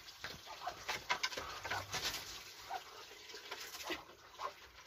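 Muscovy ducks in their pen giving soft, short calls, among scattered light clicks and knocks.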